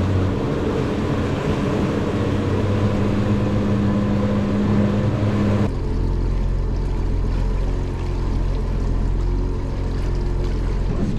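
Honda outboard motor running steadily, pushing the boat at trolling speed, its drone mixed with water washing along the hull. About halfway through the sound changes abruptly to a lower, steadier rumble.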